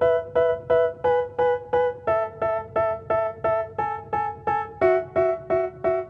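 Background music: a piano-like keyboard plays a repeating pattern of struck notes, about three a second, and the pattern shifts in pitch twice.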